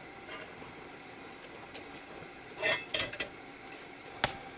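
Metal tongs and a flat spatula scraping and clicking on an iron tava as a roti is laid on it and turned: a short scraping rattle a little after halfway, a light click, then one sharp metallic click near the end, over a faint steady hiss.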